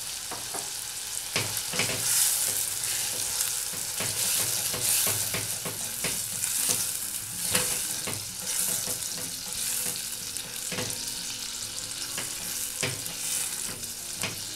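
Passion fruit pulp, onion and sugar sizzling in a stainless steel saucepan while a silicone spatula stirs, scraping and tapping against the pan from about a second in.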